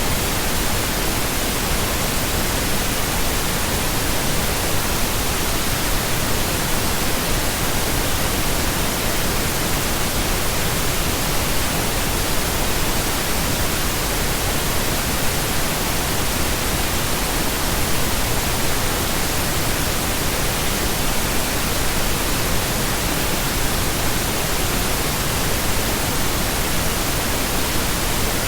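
Continuous pink noise: a steady, even hiss spread across all pitches, with no changes or events.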